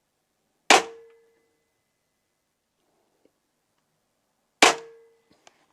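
Two crossbow shots about four seconds apart, each a sharp crack as the bolt strikes a PC case side panel, which rings briefly with a metallic clang.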